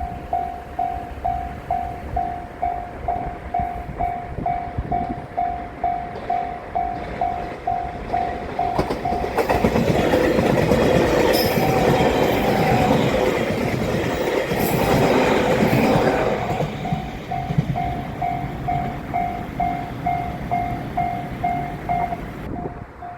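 Japanese level-crossing warning bell ringing steadily about twice a second. A train runs over the crossing for about seven seconds in the middle, and its loud wheel and rail noise drowns the bell. The bell keeps ringing after the train has gone.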